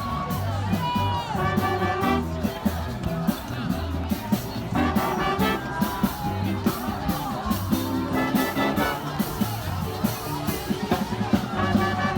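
Music with a steady beat, bass and a sung or melodic line.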